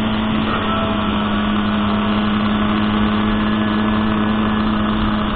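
Small motorcycle engine running at a steady cruising speed, an even droning hum that holds one pitch.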